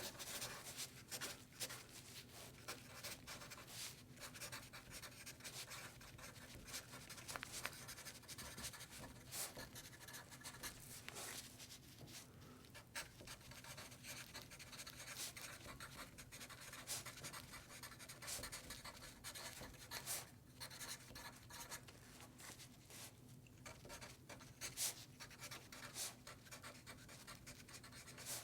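Pen writing on paper: a continuous, irregular scratching of short strokes and quick ticks as the tip moves across the page.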